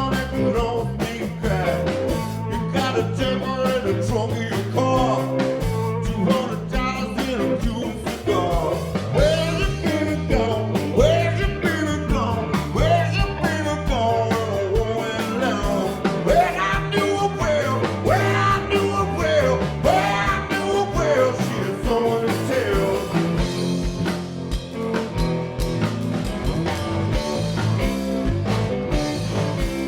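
Live blues-rock band playing, with an electric guitar lead bending its notes over bass and a steady drum beat.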